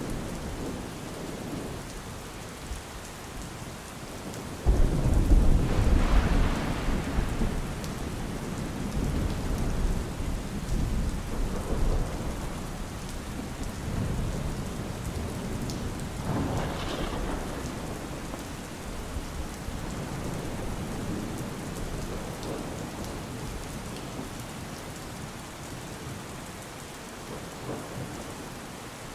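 Steady rain falling, with thunder: a loud clap about five seconds in that rolls away over several seconds, and a second, softer rumble a little past halfway.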